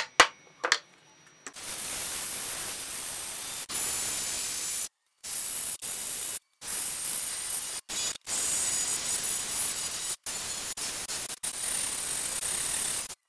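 Cordless DeWalt 20V XR jigsaw cutting a curve through a thick wooden board: a steady, hissy buzz of the blade that starts about a second and a half in. It is broken several times by abrupt cuts to silence.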